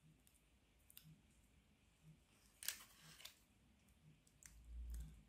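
Near silence, broken by a few faint clicks of black 3D-printed plastic puzzle parts being handled and pressed together, the clearest about two and a half seconds in. A soft low rumble comes near the end.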